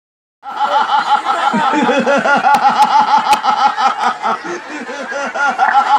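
A crowd of many people laughing together, their voices overlapping in quick short bursts. A few sharp clicks come in the middle.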